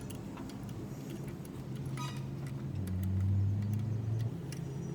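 Scattered light metallic clinks of hand tools working on an engine, over a steady low hum that swells for about a second and a half past the middle.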